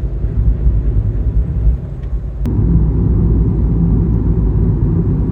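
A car driving: a steady low engine and road rumble that grows louder and fuller about two and a half seconds in.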